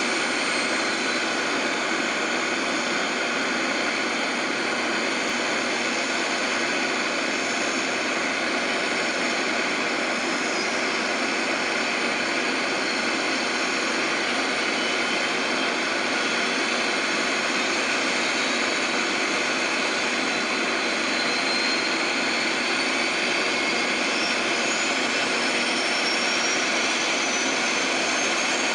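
Eurocopter AS350 B3 helicopter with its Turbomeca Arriel turboshaft engine running steadily, a dense turbine whine with a high tone that rises in pitch over the last few seconds.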